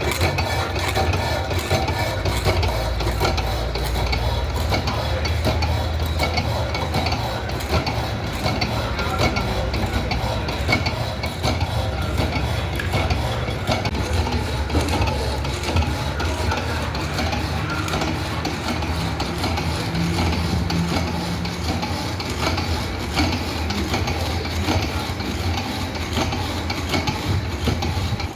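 Industrial horizontal band saw running, its blade rasping steadily through a large steel shaft over a low motor hum.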